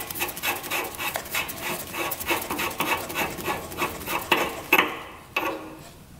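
Rapid metal scraping and clinking of hand work on a motorcycle's fuel petcock as it is worked loose from the gas tank. Two sharper knocks come about four and a half seconds in, then the sound dies away.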